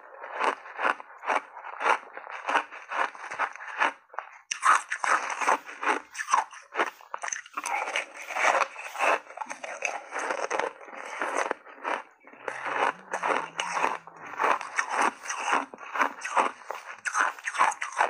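A person biting and chewing refrozen ice chunks: a dense run of crisp crunches, several a second, with a brief lull about four seconds in.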